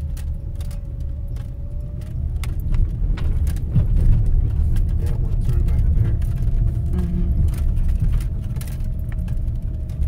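Car driving slowly over a dirt road, heard from inside the cabin: a steady low rumble of tyres and engine with scattered clicks and rattles, over a faint steady whine that steps up slightly about two seconds in.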